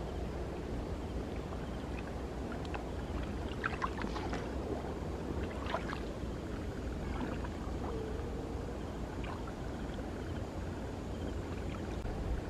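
Shallow lake water sloshing and splashing, with a few small splashes about four and six seconds in, over a steady low rumble.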